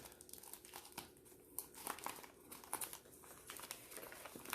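The bag wrapped around a mail-order orchid crinkles faintly as it is handled and opened, in short, scattered crackles.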